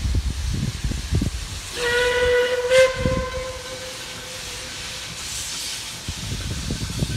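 Steam whistle of a Puffing Billy NA-class narrow-gauge steam locomotive, one long blast. It starts about two seconds in, is loudest for its first second, then dies away over the next few seconds. Wind buffets the microphone before and after the whistle.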